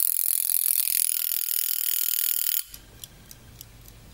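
Mechanical wind-up timer of a Gefest gas stove, its works exposed, wound by its knob: a loud rapid ratcheting buzz for about two and a half seconds. Then the timer ticks faintly a few times a second, running again now that its pendulum and gear have been oiled.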